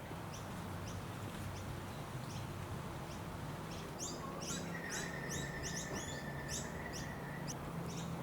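Birds chirping repeatedly in short, quick calls, busier in the second half, with one held trilling note for a couple of seconds. A faint steady low hum runs underneath.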